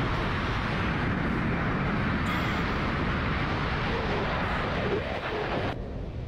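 Wind rushing hard over a skydiver's camera microphone during tandem freefall, a steady rush that drops away suddenly near the end.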